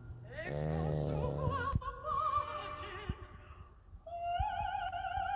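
A loud snore about half a second in, lasting about a second, over operatic singing with a wide vibrato that holds a long note near the end.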